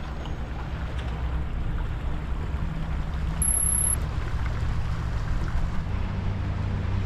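Steady low engine rumble over river water and wind noise, growing stronger about six seconds in. A short high electronic tone sounds about three and a half seconds in.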